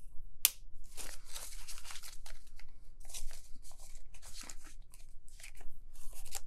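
Clear plastic zippered cash envelopes in a budget binder crinkling and rustling as they are handled, closed and opened, with paper bills shuffled between them; a sharp click about half a second in.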